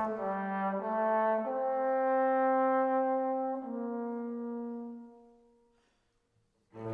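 Background music: a few slow, held chords that fade out about five seconds in, followed by a moment of silence.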